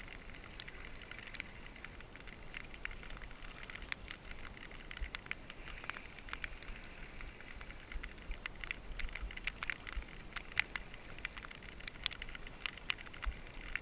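Kayak paddle strokes in shallow sea water: the blades dip and splash, and water drips off them as a steady scatter of small clicks and splashes, over a low uneven rumble.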